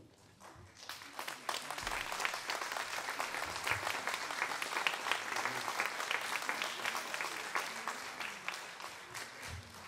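Audience applauding, the clapping building up about a second in, holding steady, then tapering off near the end.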